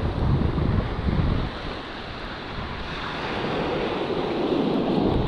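Ocean surf washing onto a sandy beach, with wind buffeting the microphone for the first second and a half; the wash of a wave builds up toward the end.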